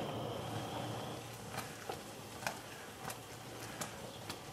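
Faint, irregular ticks and pops from red currant jam in a copper pot coming up to the boil, with a wooden spoon beginning to stir it near the end.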